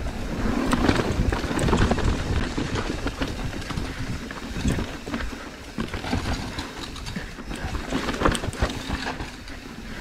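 Mountain bike riding down rocky singletrack: tyres rolling over dirt and rock, with irregular knocks and clatter from the bike as it hits rough ground, and wind buffeting the camera microphone.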